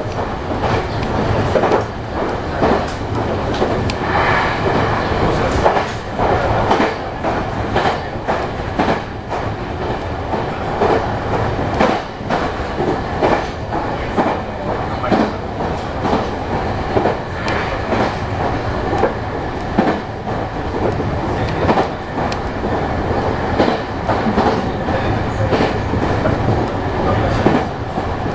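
Meitetsu electric train running along the line, heard from inside the front of the car: a steady running noise with frequent sharp clicks of the wheels over the rails.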